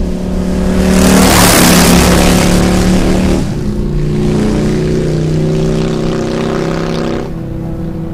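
Background music: held chords that shift in steps every second or so, with a loud hissing swell over the first few seconds.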